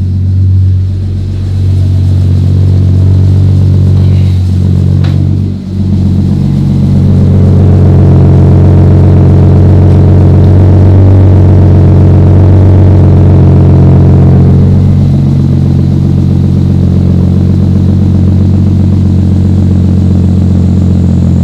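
Toyota Supra's 2JZ-GTE twin-turbo straight-six idling steadily through its Blitz Nur Spec exhaust, not misfiring, while still warming up. A brief thump about five seconds in, and the engine sound grows louder from about seven seconds in, easing back around fifteen seconds.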